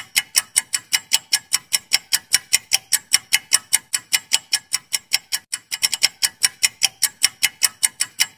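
Quiz countdown-timer sound effect: a steady clock-like ticking, about four ticks a second, that cuts off abruptly at the very end.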